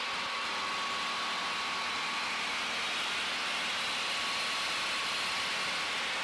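Steady in-flight cabin noise of a Cessna 182P Skylane: its engine and propeller droning evenly, heard mostly as a constant hiss with a faint steady tone.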